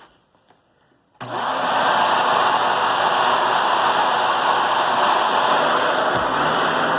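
Vacuum cleaner switched on about a second in, its motor quickly reaching full speed and then running steadily and loudly.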